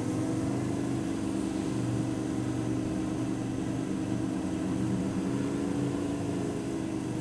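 Motorcycle engine running at low, steady revs while riding slowly in a low gear.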